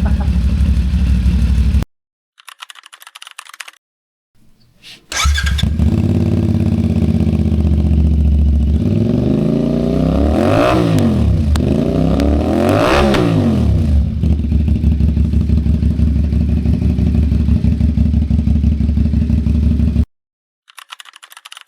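CFMoto 450SR-S parallel-twin engine idling through an aftermarket muffler fitted in place of the cut-off stock pipe. It is blipped twice in quick revs that rise and fall back to idle, and the engine sound stops abruptly more than once.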